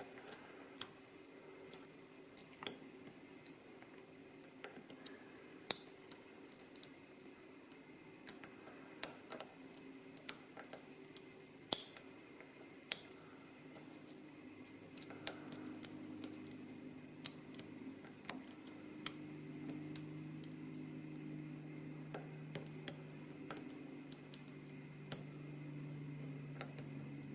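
Picking tools working inside a dimple lock cylinder, making many small irregular metallic clicks and ticks as the pins are set. A faint low hum sits underneath from about halfway through.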